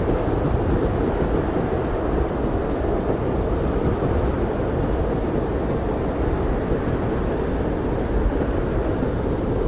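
Blizzard wind as a steady, low, dull rush with little high hiss, unchanging throughout.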